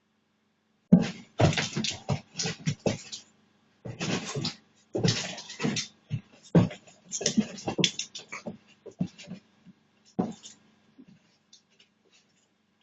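Irregular bursts of scuffling and rustling noise in short clusters, quieter after about ten seconds, over a faint steady hum.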